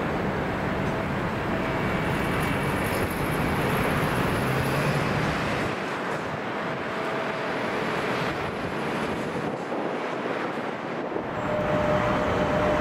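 Steady jet engine noise of an airliner on final approach, with faint whining tones over it, growing louder near the end.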